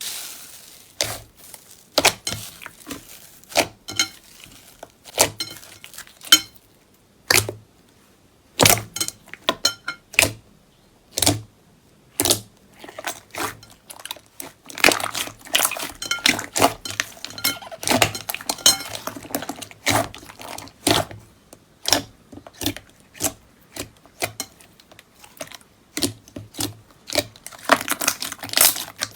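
Slime being squeezed and pressed by hand, giving a run of sharp clicks and pops, several a second, thickest in the middle and near the end.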